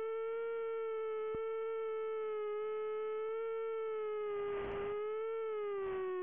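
A steady electronic tone with overtones, its pitch wavering slightly and sinking toward the end, carried on the analog FPV link's audio. A burst of radio hiss comes a little past halfway, and a shorter one near the end, as the video signal breaks up.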